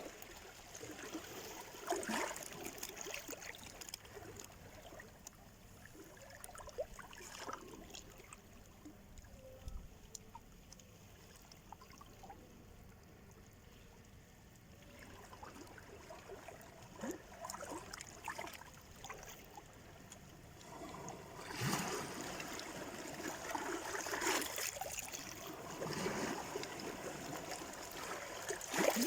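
Small sea waves washing and splashing onto the shore in irregular surges, quieter in the middle and with fuller, louder washes from about two-thirds of the way through.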